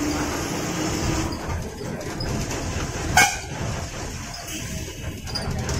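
Interior noise of a NEKRTC state-transport bus on the move: a steady engine and road rumble heard from inside the cabin. A single short, loud sharp clack about three seconds in.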